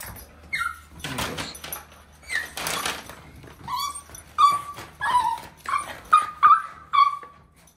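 Small curly-coated dog whining and whimpering in excited greeting: a run of short, high cries, each falling in pitch, coming close together in the second half, after two noisy bursts of scuffling or snuffling early on.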